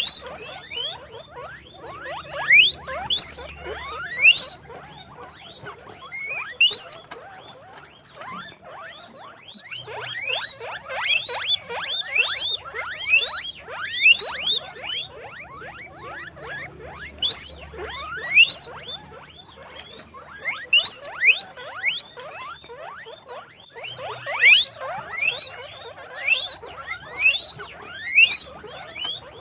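Guinea pigs squeaking: many short, high, sweeping squeaks that come in quick clusters and often overlap, with brief lulls between.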